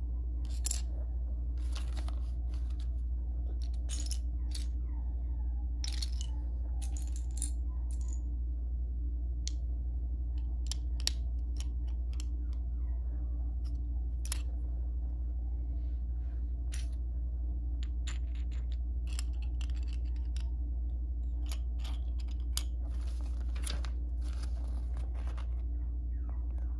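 Plastic Lego bricks clicking and tapping as they are handled, pressed together and set down on a wooden floor: many small, sharp clicks scattered irregularly, over a steady low hum.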